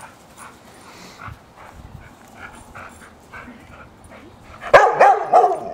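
A dog barking in play: after a quiet stretch, a quick run of about four loud barks comes about three-quarters of the way through.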